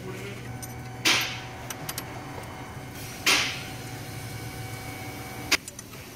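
Three sharp metallic knocks about two seconds apart, the last a brief click, as a hand tool works a bolt on the alternator's mounting bracket, over a steady low hum.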